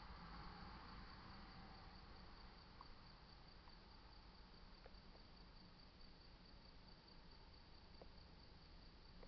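Faint insects trilling: a steady, high, evenly pulsing chirr over quiet outdoor ambience, with a few tiny faint chirps scattered through it.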